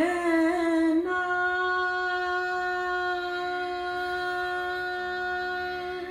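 A woman singing one long held note in Indian classical style over the steady drone of a tanpura. Her voice wavers in pitch at first, then settles about a second in and holds steady.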